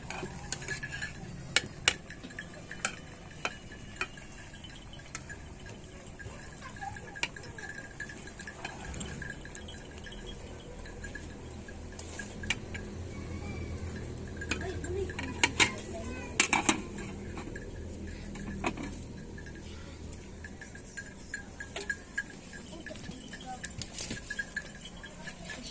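Metal cooking pots and utensils clinking and knocking, in scattered sharp clinks through the whole stretch.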